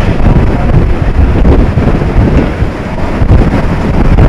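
Hurricane-force wind buffeting the microphone, loud and rumbling in uneven gusts.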